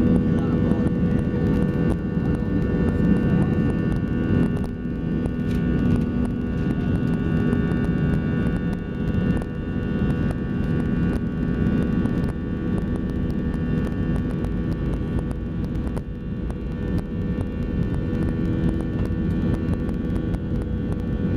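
Airbus A320 jet engines running steadily: a constant, even noise with several steady hum-like tones in it, no change in pitch or loudness.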